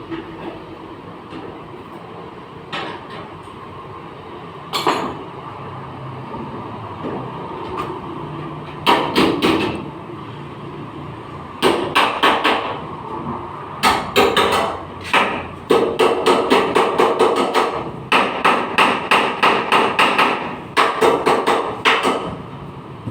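Hammer blows on the sheet-metal body panels of a crash-damaged Alto car, being panel-beaten back into shape. A few single strikes come first, then clusters of ringing blows, and from about halfway a fast even run of about three blows a second.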